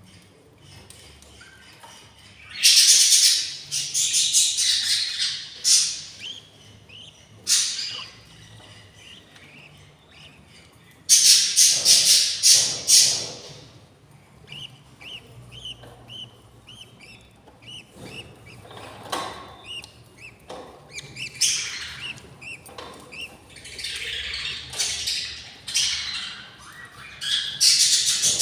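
Budgie chicks' begging calls: loud, harsh, raspy bursts lasting a few seconds, three times, with runs of small quick chirps between them, the sound of hungry nestlings.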